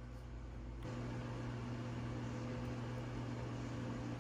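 Steady low electrical hum with an even hiss of background noise; its tone shifts slightly about a second in.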